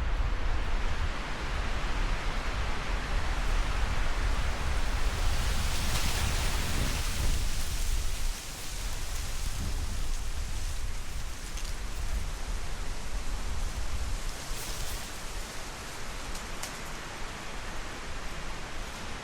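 Tree leaves rustling in gusty wind, swelling in hissy gusts, with wind buffeting the microphone as a low rumble that drops away about eight seconds in.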